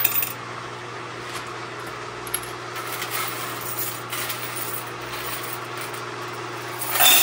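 Electric coin counter running with a steady motor hum while car-wash tokens and quarters are fed through it, the coins clicking faintly as they pass. A louder, brief rattle of coins comes near the end.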